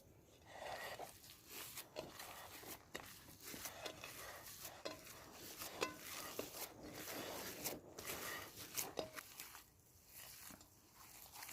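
Quiet, irregular crunching and rustling with light clinks, as of food being handled and prepared.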